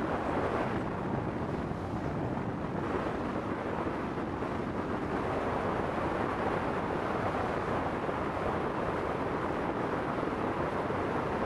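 Steady noise of a boat under way on open water, with wind buffeting the microphone.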